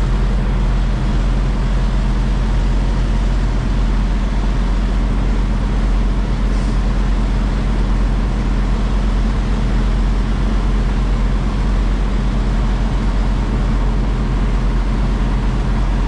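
Semi-truck diesel engine running at idle, a steady low drone that holds even while the tractor-trailer creeps back. A faint short hiss comes about six and a half seconds in.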